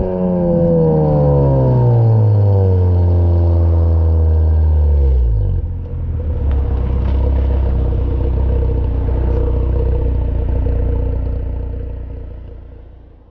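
Mazda RX-8's two-rotor Renesis rotary engine, breathing through a decatted ToyoSport exhaust, running down from high revs with its pitch falling over about five seconds. It then settles into a steady, lumpy idle and fades out near the end.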